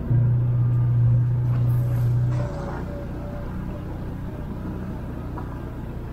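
All-terrain vehicle being pulled along a gravel and dirt trail by a husky sled-dog team, giving a steady low rumble that is louder for the first two and a half seconds, then settles lower.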